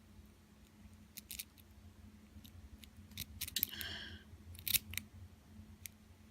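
Small sharp metallic clicks from lock parts and tools being worked at the retaining clip on an ABUS 34/55 padlock's core, with a short squeaky metal scrape about halfway through.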